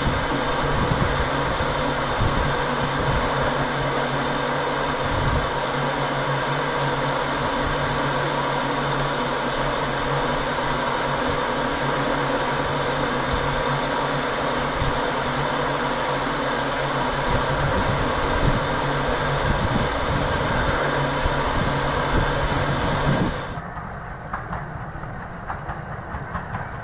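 Steady hiss of steam escaping from a standing GWR 6400-class pannier tank locomotive, No. 6430. The hiss cuts off abruptly about 23 seconds in, leaving a much quieter background.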